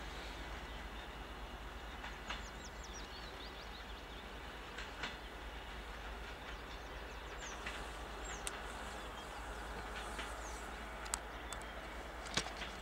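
Faint, steady rumble of a TEP70 diesel locomotive and its suburban train moving away along the track. Birds chirp over it in short falling notes, and a few sharp clicks come near the end.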